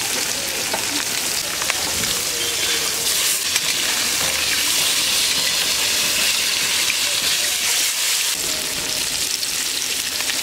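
Rohu fish steaks sizzling steadily as they fry in hot oil in a wok.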